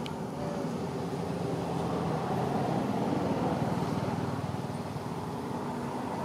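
Steady low mechanical rumble of a running motor, growing a little louder in the middle and easing off toward the end.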